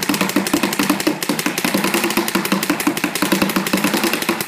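Planet Eclipse Etek 4 AM paintball marker firing in a rapid, unbroken string of shots.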